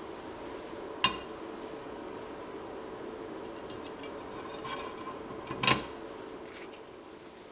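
Two sharp metallic clinks, about a second in and again near six seconds, with a few lighter ticks between them, over a steady hum.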